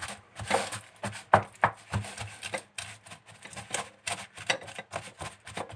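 Silicone spatula pressing and patting a buttered chocolate-biscuit crumb base into a metal springform pan: a run of short, irregular taps and scrapes, a few a second.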